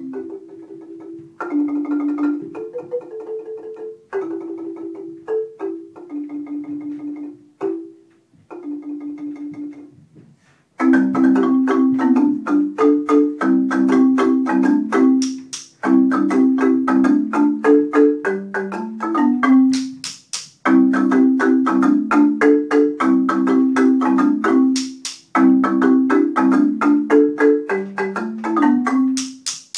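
A large wooden marimba with tube resonators, played four-handed with mallets as a duet. For about the first ten seconds it plays quieter short phrases with gaps between them. From then on the playing is louder and fuller, with repeated phrases broken by brief pauses.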